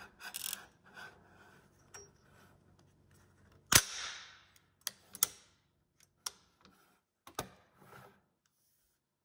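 AR rifle's end cap screwed onto the buffer tube with a faint scraping at the start. About four seconds in, one loud metallic clack with a short ringing tail as the charging handle is worked and the bolt carrier goes forward. Then a few lighter metal clicks as the parts are handled.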